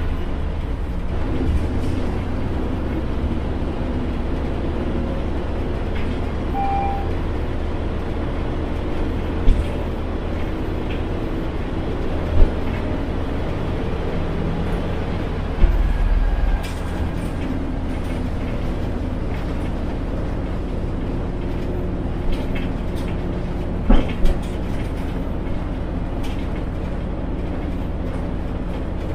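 Front-mounted engine of a Yangtze River Jingcheng city bus running steadily, heard from inside the bus, with a low rumble. Several sharp knocks or clunks break through it, two of them close together about two-thirds of the way in.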